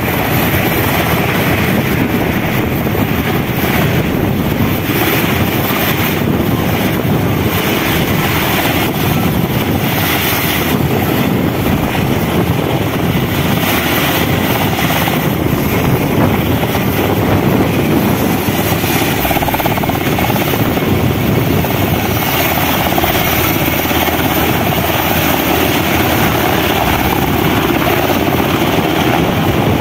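Sikorsky UH-60L Black Hawk helicopter running close by: its four-blade main rotor and twin General Electric T700 turboshaft engines make a loud, steady rushing noise.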